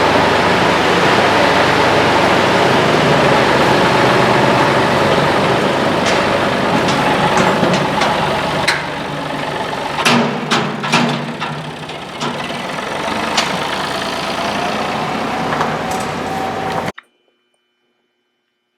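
An engine runs steadily and eases somewhat about eight or nine seconds in. A series of sharp knocks and clanks follows, and the sound cuts off abruptly near the end.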